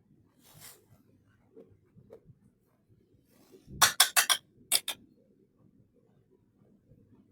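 Small hard pieces of a miniature toy kitchen set being handled: a faint rub early on, then a quick run of about four sharp clicks about four seconds in, followed by two more clicks.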